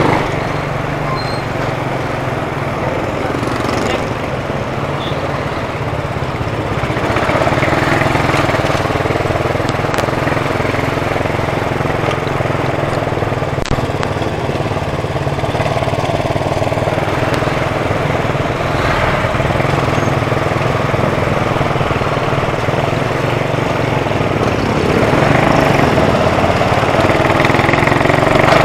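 Motorcycle engine running under way in traffic, its note climbing as it speeds up about a quarter of the way in and again near the end.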